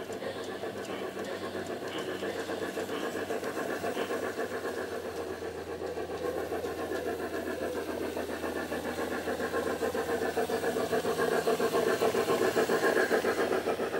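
G-scale model train running on garden track: a steady mechanical drone with a fast pulsing, growing louder in the last few seconds as the train comes close.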